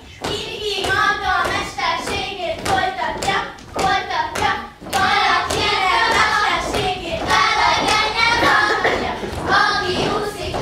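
A group of young girls singing a Hungarian folk song together, with hand claps and stamping feet on the wooden stage.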